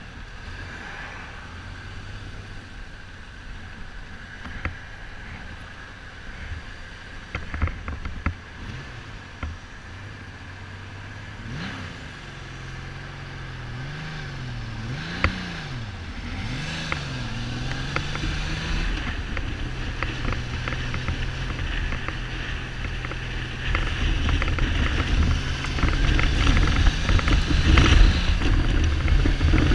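Kawasaki Z1300 inline-six motorcycle engine running while riding, with the revs rising and falling several times in the middle and getting louder with more wind rush near the end. The bike has a misfire and is not running on all cylinders, which the owner puts down to the carburettors fouling the plugs. A few sharp clicks of helmet rattle come through.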